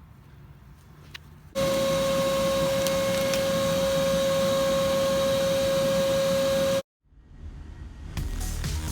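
Vacuum cleaner switched on, running steadily with a high whine, its hose in the car's muffler so it draws air through the exhaust and shows up the leaks. It cuts off abruptly about seven seconds in.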